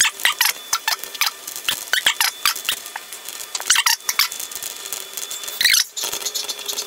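Chalk writing on a chalkboard: quick, irregular scratching strokes and taps as words are chalked up, with a short pause a little before the end.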